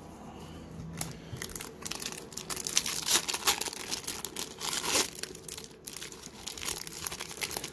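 Foil wrapper of a 1991-92 Pro Set hockey card pack crinkling and tearing as it is torn open by hand. It starts about a second in, with a dense run of crackles in the middle.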